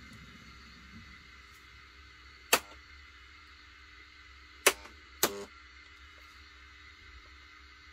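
Three sharp clicks over a faint steady hum: one about two and a half seconds in, then two more close together about two seconds later, the last followed by a brief rattle.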